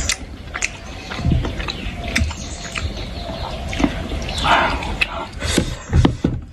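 Close-miked wet chewing of soupy dumplings (jhol momos), with many short lip-smacking clicks.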